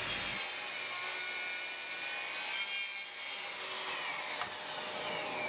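Bosch GCM 18V-216 cordless sliding miter saw cutting through a clamped wooden board, the spinning blade rasping through the wood. From a little past halfway the blade and brushless motor wind down with a falling whine.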